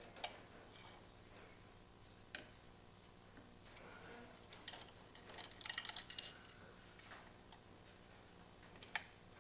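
Hand tools and small metal parts being handled while fitting motorcycle rearsets: a few sharp clicks and knocks, the loudest near the end, and a quick run of small clicks about six seconds in.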